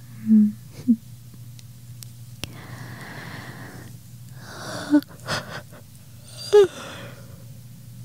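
A woman breathing slowly, with sighs and a few short murmured hums, as she drifts toward sleep.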